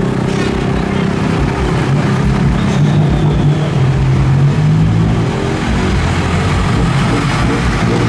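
Diesel engines of six-wheel Hino and Isuzu dump trucks running as the loaded trucks move off one after another, a low steady engine drone that rises a little in pitch in the middle.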